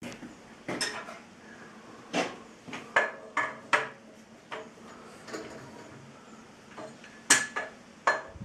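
Irregular metallic clanks and clicks, about ten sharp knocks with brief ringing, from the fittings of a 1950 Lister D stationary engine being handled while it stands still. The loudest clank comes about seven seconds in.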